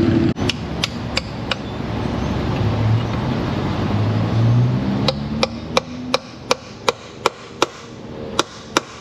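Low rumbling noise for the first few seconds, then sharp metal hammer taps about three a second, starting about five seconds in, on a very tight oil pan bolt that is stripping.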